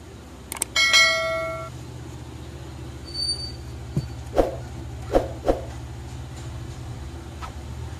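A click and then a short bell-like chime that rings for under a second and fades. After it come a brief high beep and a few separate soft clicks or taps, all over a steady low hum.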